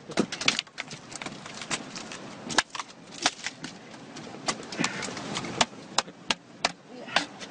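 A run of sharp, irregular knocks and clicks, roughly one or two a second at uneven spacing, over a faint steady hiss.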